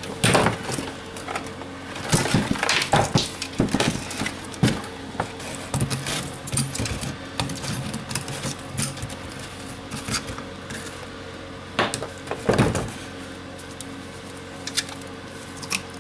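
Metal and plastic parts of a BUNN coffee maker clinking, clicking and knocking as it is taken apart by hand with tools. The knocks are irregular, come thickest in the first few seconds, and there is a loud one about twelve and a half seconds in.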